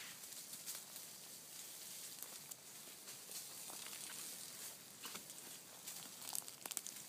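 Footsteps crunching and rustling through dry leaf litter on a forest floor: scattered, irregular crackles of leaves underfoot.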